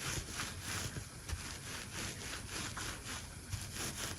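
Hands rolling and pressing a beeswax candle wrapped in dried sage and wormwood, the dry herbs scraping and rustling against the palms in repeated strokes, about two to three a second.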